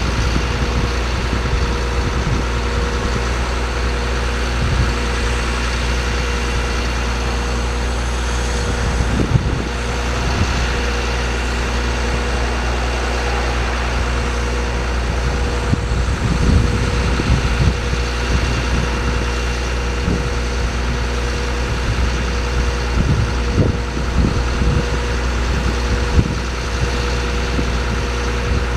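GMC C7500 truck engine idling steadily, with a steady hum and a few brief low knocks now and then.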